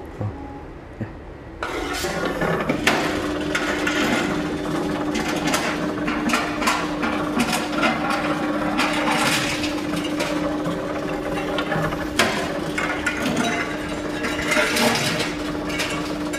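Reverse vending machine taking in aluminium drink cans: a steady motor hum starts about three seconds in and runs on under repeated clattering knocks and clicks as the cans are fed through.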